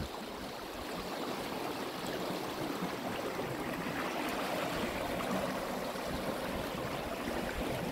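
Shallow river water running and rippling over rocks and a sandstone bed, a steady rushing flow.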